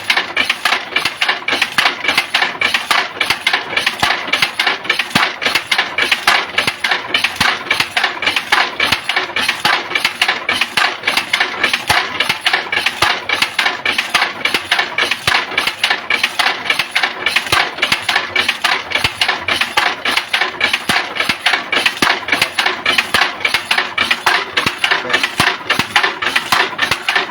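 An engine running steadily with a fast, even pulse of about four beats a second.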